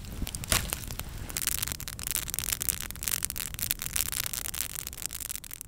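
Wood campfire crackling and popping over a steady hiss of burning. The crackle grows denser about a second and a half in, as freshly added twigs flare up.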